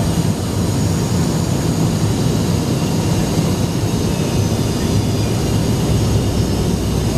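Steady cabin noise of a jet airliner on descent with flaps extended: jet engine and airflow rush over a low, even drone.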